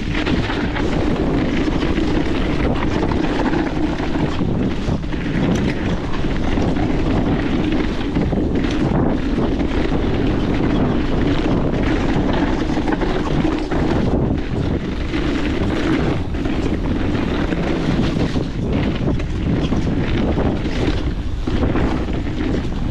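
Wind rushing over the camera's microphone and tyre noise from a mountain bike ridden over a rough dirt trail, with frequent short knocks and rattles from the bike.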